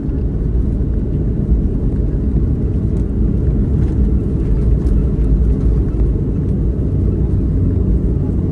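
Cabin noise of a Boeing 737-700 rolling on the ground just after landing: a steady low rumble.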